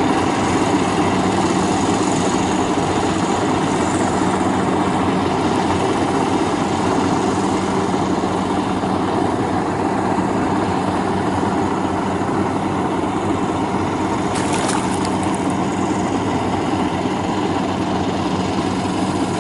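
FMWorld WD102Pro rice combine harvester running steadily as it cuts through standing rice, a constant engine drone with the machinery churning.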